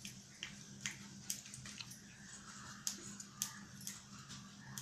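Mustard seeds spluttering in hot oil in an iron kadai: scattered sharp pops at irregular intervals, about two a second, as the seeds burst in the heat.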